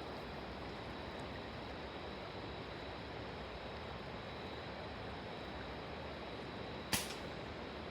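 Steady rushing of river water around waders, with one sharp knock or splash about seven seconds in.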